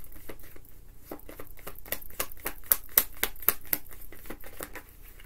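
A tarot deck being shuffled by hand: a quick, irregular run of sharp card clicks, several a second.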